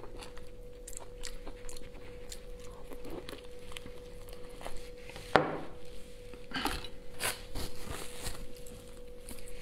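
Mouth sounds of a person eating raw lobster meat: soft chewing and wet clicks, with one sharp knock about five seconds in. A rustle of paper near the end as a napkin wipes the mouth, all over a faint steady hum.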